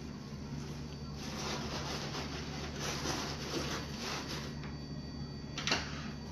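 Shredded-paper packing rustling and crinkling inside a cardboard shipping box as hands dig through it, in irregular bursts, with a short bump of the box near the end.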